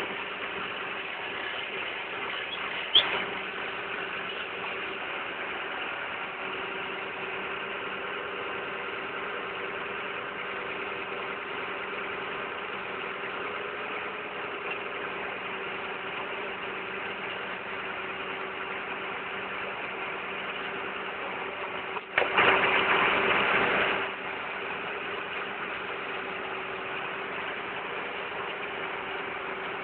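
Truck engine idling steadily with a constant hum. A sharp knock comes about three seconds in, and a loud burst of noise lasting about two seconds comes about three quarters of the way through.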